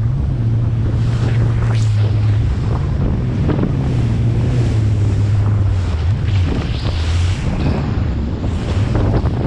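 Yamaha VX Cruiser jet ski's engine running with a steady low drone, under wind buffeting the microphone and the splash and hiss of spray as the hull rides through rough chop.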